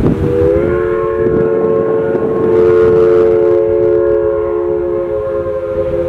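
Pennsylvania Railroad three-chime steam whistle on steam locomotive Western Maryland 1309 blowing one long blast: a three-note chord that comes up slightly in pitch as the steam builds in the first half-second, then holds steady.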